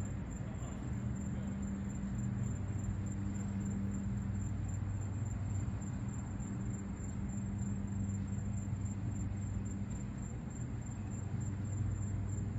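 A steady low mechanical hum, engine-like, with a constant thin high whine above it.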